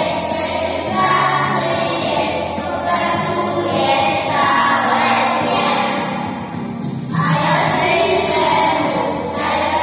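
Group of young children singing a song together in unison, in phrases a couple of seconds long with short breaks between them.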